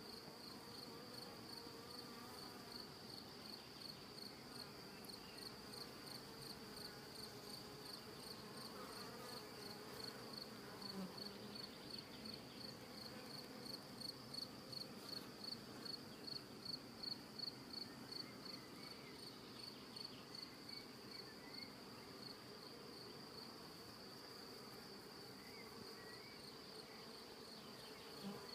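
Honeybee colony humming faintly on the comb. Over it runs a high, even pulsing chirp, about two or three pulses a second.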